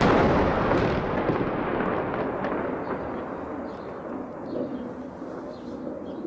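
Large explosion of a strike: a sudden blast at the start, then a long rolling rumble that slowly fades, with a few faint crackles.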